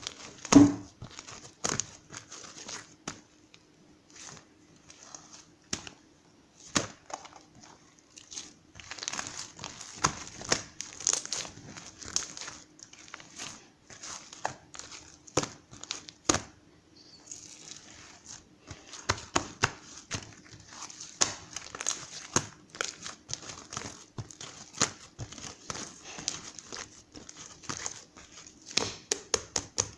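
Irregular crinkling and rustling, dense with sharp little clicks, coming and going with a couple of quieter pauses, over a faint steady hum.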